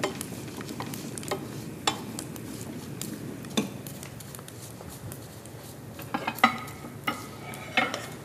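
A wire whisk and a spoon stirring in stainless steel pots, with scattered clinks of metal against the pot sides and a few sharper clinks near the end.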